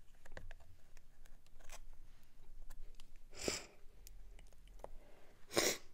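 Small clicks and scrapes of a slim metal prying tool working against a metal makeup compact and its glued pan. Twice, about midway and again near the end, a short cough breaks in, loudest of all.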